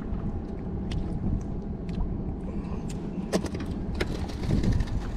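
Wind rumbling on the microphone, with a few sharp clicks and knocks scattered through it, the sharpest just past three seconds in.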